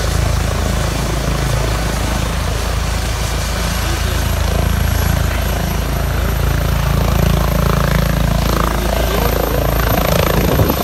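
Air ambulance helicopter running on a roadway with its rotor turning: a loud, steady heavy rotor beat with engine whine. It grows a little louder near the end as the helicopter begins to lift off.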